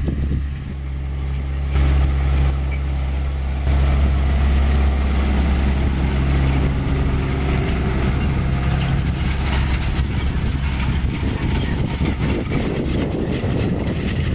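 Case IH 140 tractor's diesel engine running under load as it pulls a John Deere 980 field cultivator close past, a steady low drone that grows louder in the first few seconds. Near the end the cultivator's tines dragging through the soil add a rough, clattering noise.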